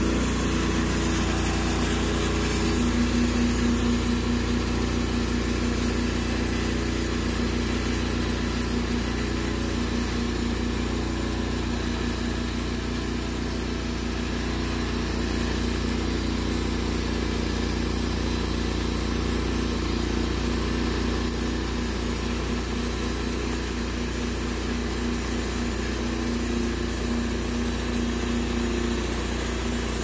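Timbery M280 portable band sawmill running steadily, its engine under load as the band blade is pushed slowly into and through a log.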